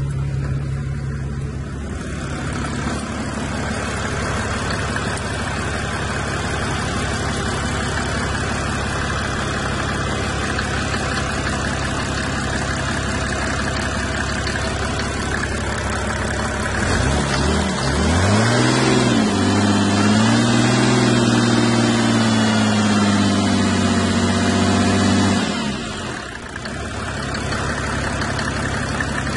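Mercedes-Benz W124 300 TD's OM603 naturally aspirated six-cylinder diesel idling with its main fuel filter just replaced. Just past halfway it is revved up, held at raised revs for about eight seconds, then falls back to idle.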